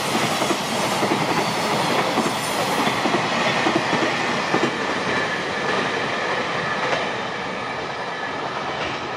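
A freight container train of loaded flat wagons passing at speed, its wheels rumbling and clacking on the rails. The noise eases off a little in the last couple of seconds as the end of the train goes by.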